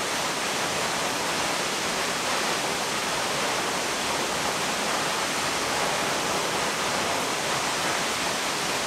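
Steady rushing of a tall waterfall and the rocky creek running below it, even and unbroken, cutting off suddenly at the very end.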